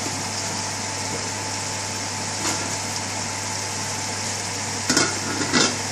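Spinach and onions frying in ghee in an open frying pan: a steady sizzling hiss over a low hum, with a few light knocks near the end.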